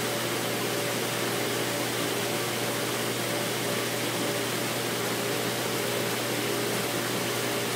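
Steady hum and hiss of running aquarium equipment such as filter pumps, with a low hum and a few faint steady tones and no change in level.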